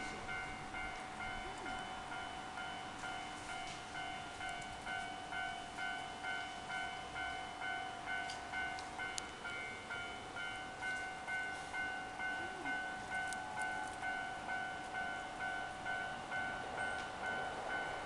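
Japanese level-crossing electronic warning bell ringing, a steady repeating 'kan-kan' of ringing tones at about one and a half strokes a second.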